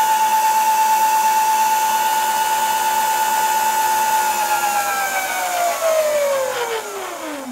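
Electric scooter's DC drive motor running at a steady speed with a high whine. About four and a half seconds in, it winds down, its pitch falling steadily as it spins down.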